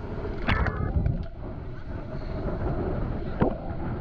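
Wind buffeting the microphone on an open beach, a steady low rumble with surf washing behind it. A short shout or call comes about half a second in.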